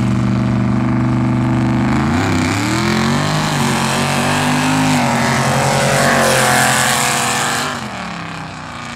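Pickup truck engines held at steady revs on the start line, then launching about two seconds in: the pitch climbs, drops at a gear change and climbs again under full throttle, with the noise growing rougher. The sound falls away near the end as the trucks pull away down the track.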